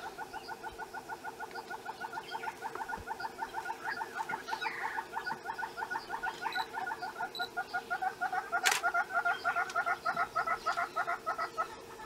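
Southern red-billed hornbill giving its piping call: a long, rapid series of short notes, about six a second, growing louder over the run and breaking off briefly near the end. One sharp click sounds about two-thirds of the way through.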